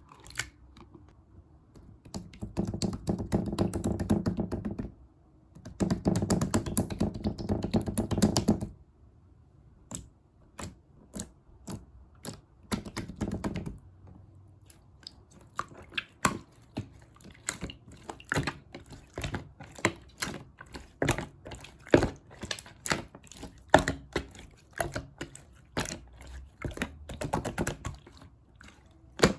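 Clear slime handled by hand: two long stretches of dense, wet crackling as it is squished, then a run of sharp clicks and pops, several a second, as it is poked and pressed.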